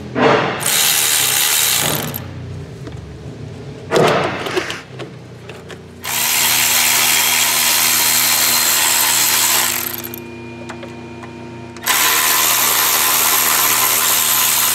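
Cordless electric ratchet running in bursts as it spins fasteners out under the hood: two short bursts early on, then two long runs of about four seconds each.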